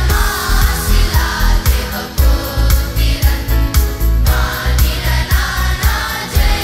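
Children's choir singing a Tamil Christmas carol in unison over an accompaniment with a heavy bass and a steady beat.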